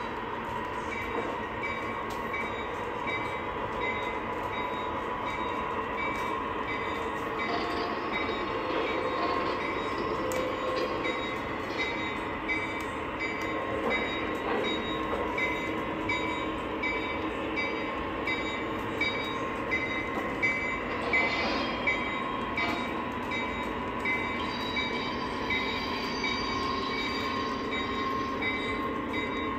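O scale model trains running on a three-rail layout: a steady whirr and rattle of wheels and motors on the track, with a few sharper clicks about two-thirds of the way through.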